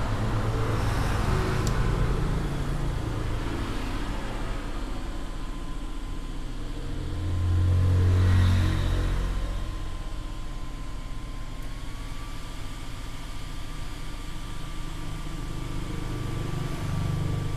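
Small electric cooling fan running over a phone circuit board to cool a freshly soldered PA chip: a steady rushing hum with a thin whine that steps up slightly in pitch about two-thirds of the way through. The hum swells louder for a couple of seconds near the middle.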